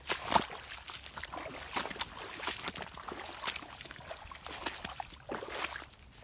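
Irregular splashing and sloshing in shallow water, with a quick run of sharp knocks near the start.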